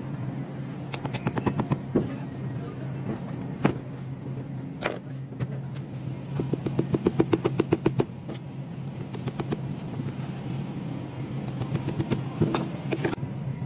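Short steel cheese knives clicking and scraping against the hard rind of a Parmigiano-Reggiano wheel as it is scored and opened, with a quick run of clicks about halfway through. A steady low hum runs underneath.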